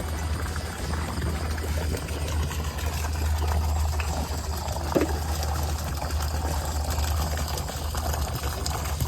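Steady running and trickling water from a garden koi pond, with a low steady hum underneath.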